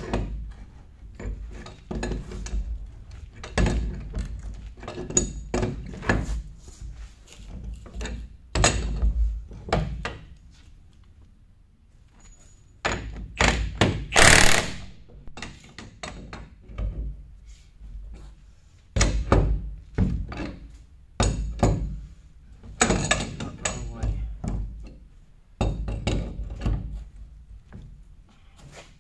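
Irregular knocks, clanks and thunks of hand tools working on the steel brush housing of a Cat BU118 sweeper attachment during a brush change, with one louder half-second rush of noise about halfway through.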